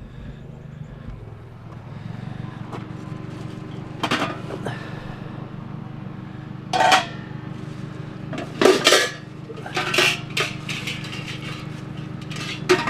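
Gold-coloured Goldmatic metal cookware clanking and clattering as pots and pans are handled and pulled apart. The clanks are irregular and come thick around the middle, over a steady low hum.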